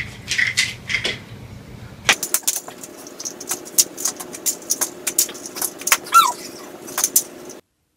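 Scattered sharp clicks and taps, with one short squeak, perhaps a cat's, falling in pitch about six seconds in; the sound cuts off abruptly near the end.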